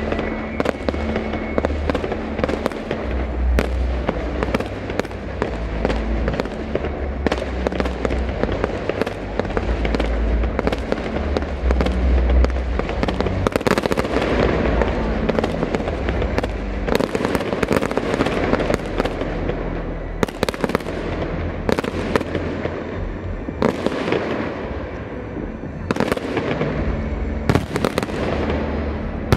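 Fireworks display: aerial shells bursting in a rapid barrage of sharp bangs, several a second, with crackling between them.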